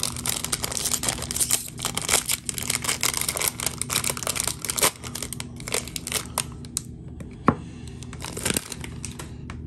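Trading card pack wrapper being torn open and crinkled, busy and dense for the first five seconds or so, then sparser crinkles, with a single sharp tap about seven seconds in.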